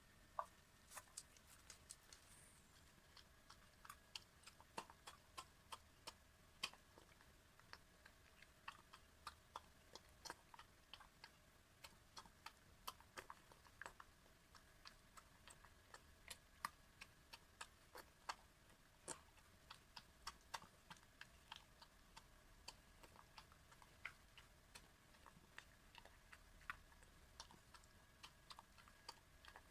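Elderly miniature dachshund eating homemade soup and food from a dish: faint, quick, irregular clicks and smacks of mouth and tongue against the bowl, about one to three a second.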